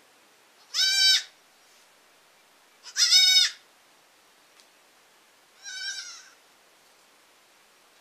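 A goat kid bleating three times, each bleat well under a second long; the third is noticeably quieter than the first two.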